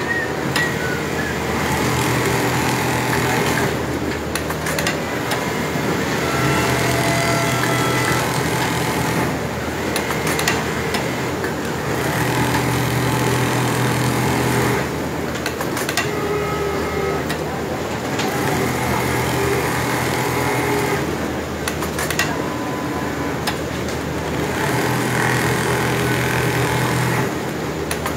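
Large-format programmable pattern sewing machine stitching fabric held in a template, its head and gantry running in stretches of several seconds with short breaks between, over a steady factory machine hum.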